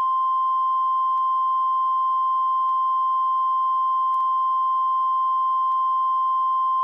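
Steady, unbroken test-card tone, a continuous high-pitched beep, with a faint click about every second and a half.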